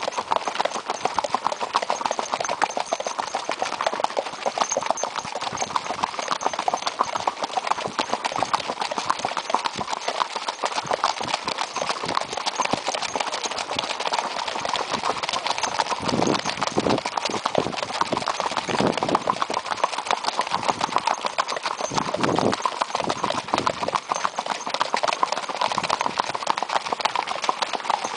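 Horses' hooves beating a quick, even, unbroken rhythm on a gravel road as the horses gait along at a smooth pace short of a gallop.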